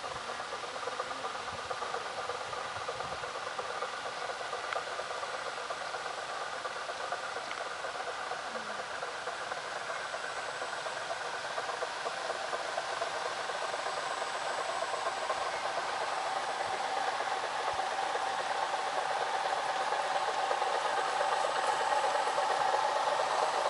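Electric drive motor of a radio-controlled model yacht whining steadily with a buzzy rattle while it pushes a stranded model boat. It grows louder toward the end as the boat nears.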